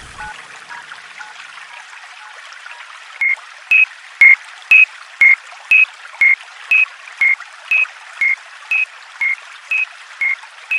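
Japanese railway level-crossing warning bell ringing its 'kan kan' alarm: short dings alternating between two close pitches, about two a second, starting about three seconds in, over a steady hiss.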